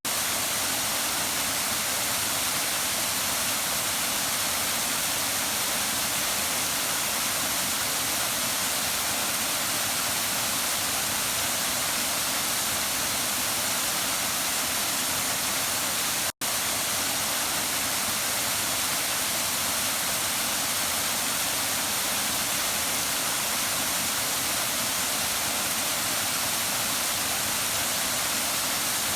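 Waterfall: water falling and rushing in a steady, full hiss, broken once, about halfway through, by a split-second dropout to silence.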